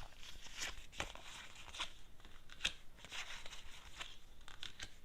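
Tarot cards being handled and laid out by hand: quiet rustling and sliding of card stock with several small taps and clicks.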